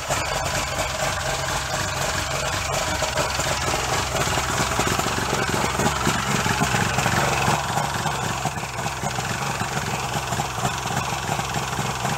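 Mercury outboard motor idling steadily on its first run of the year after sitting since fall, growing a little louder for a few seconds in the middle.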